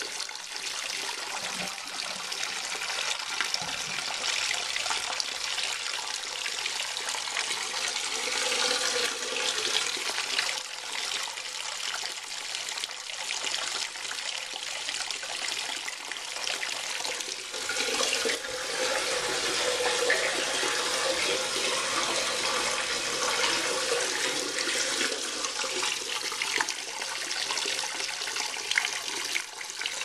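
1990 Kohler Wellworth Lite toilet tank refilling after a flush: a steady rush of water as the fill valve runs and a jet from its bent refill tube splashes into the rising water. A faint tone comes and goes twice over the top of the rush.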